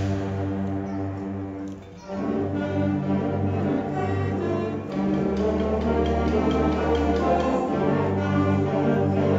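A seventh-grade school ensemble plays live: held chords fade to a brief hush about two seconds in, then the notes come back in and sustain.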